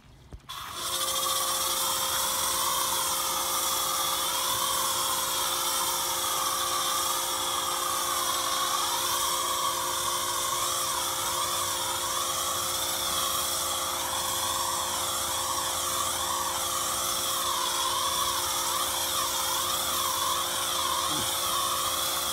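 Pressure washer spraying through a foam cannon: a steady motor-and-pump whine under a loud hiss of spray, starting suddenly about a second in.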